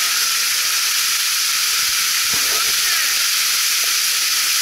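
Waterfall dropping off a rock overhang and splashing onto rock and a shallow pool close by: a steady, loud hiss of falling water.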